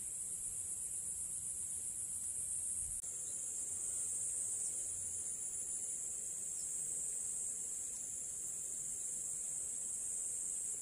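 Steady, high-pitched chorus of insects chirring, finely pulsed for the first few seconds.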